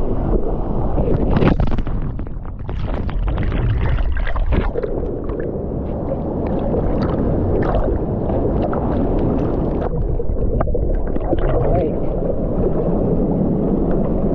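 Large waterfall: a loud, steady rush of heavily falling water, with many irregular splashes and spatters over it.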